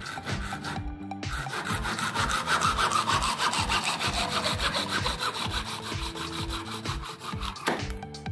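Hacksaw cutting into a metal tube clamped in a vise: rapid back-and-forth rasping strokes start about a second in and stop shortly before the end.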